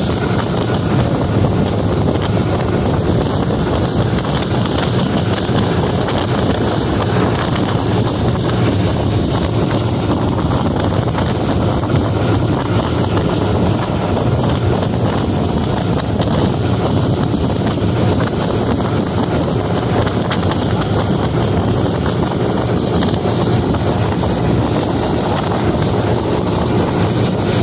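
Motorboat running at speed: a steady engine drone mixed with wind buffeting the microphone and water rushing past the hull.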